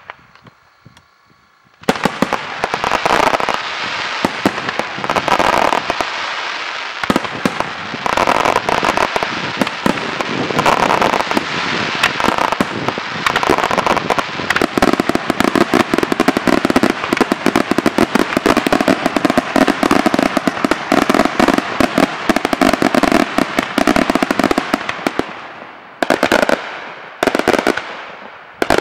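Daytime fireworks: a dense barrage of rapid bangs and crackling starts about two seconds in and runs on without a break, then thins out near the end to a few separate bursts.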